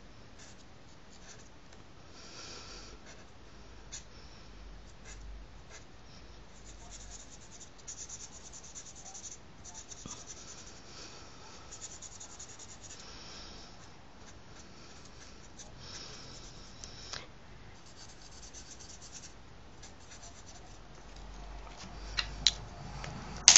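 Felt-tip permanent marker (edding 3000) scratching over paper in short repeated strokes as a star is drawn and coloured in. A few sharp clicks near the end, the last one the loudest.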